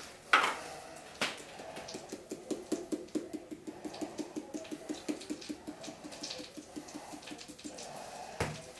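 Plastic spice shaker of onion powder shaken by hand in a quick, even rattle of about five shakes a second for several seconds. The shaking is set off by a couple of clicks from the jar and cap at the start and a single knock near the end.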